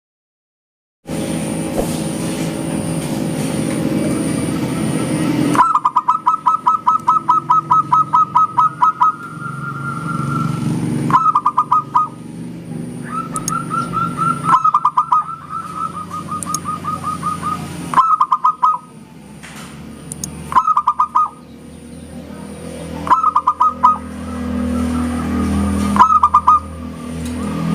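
Zebra dove (perkutut) cooing: phrases of rapid staccato notes, repeated over and over from about five seconds in. Underneath are a low background rumble and a faint steady high whine.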